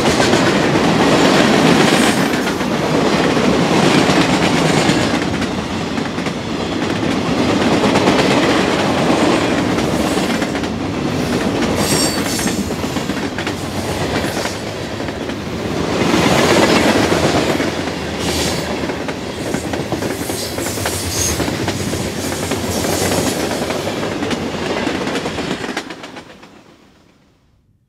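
Freight cars of a Norfolk Southern mixed freight train rolling past close by, their wheels running over the rails, with a few brief high-pitched wheel squeals. The sound falls away quickly about 26 seconds in as the last car passes.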